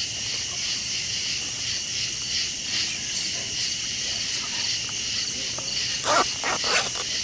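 A steady chorus of night insects, a high shrill pulsing about twice a second. Near the end, a quick cluster of rustles and knocks comes from the wet weigh sling as it is handled.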